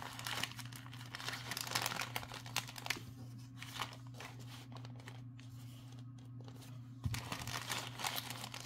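Plastic bags crinkling and rustling as they are handled, busy for the first few seconds, sparser in the middle, and busy again near the end.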